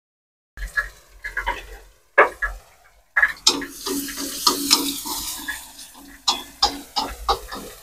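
Spatula scraping and clicking against a wok while chopped onion, shallots and garlic fry in oil with a light sizzle. The sound drops out to silence briefly near the start and twice more.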